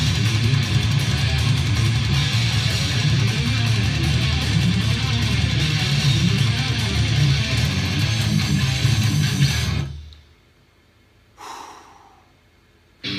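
Distorted electric guitar playing fast heavy-metal riffs on a Ran guitar. The playing stops abruptly about ten seconds in, followed by near silence broken by one short sound.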